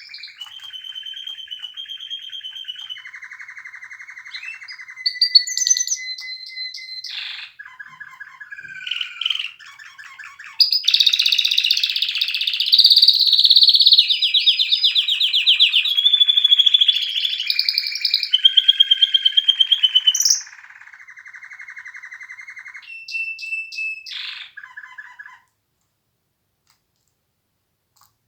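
Domestic canary singing a long song of fast trills, each a rapid run of repeated notes at a different pitch, changing every second or two and loudest in the middle. The song stops a few seconds before the end.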